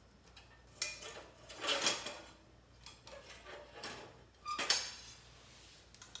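Thick iron griddle plate being handled: a series of metal clinks and scrapes, the loudest near the middle and a sharp ringing clink about three-quarters of the way in.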